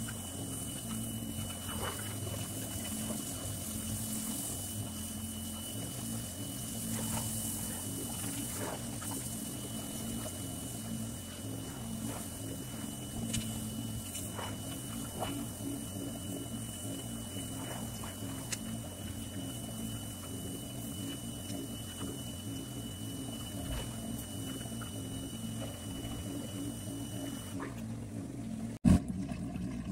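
Small electric pressure washer running with a steady hum and whine while its spray hisses against the truck's body. The running stops near the end, then comes a single sharp knock.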